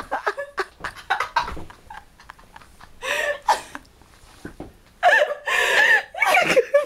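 Short bursts of people's voices, with rustling and handling clicks from the bedding between them.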